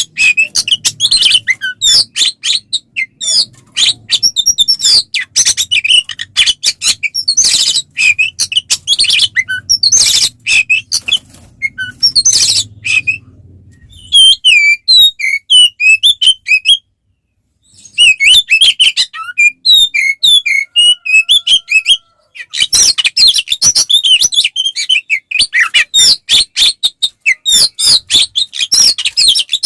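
Oriental magpie-robin singing a rapid, loud, varied song of chirps and whistles, breaking off briefly twice in the middle.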